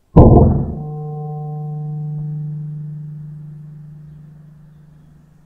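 A .177 air rifle shot: a sharp crack, followed by a deep gong-like ringing tone that fades away slowly over about five seconds.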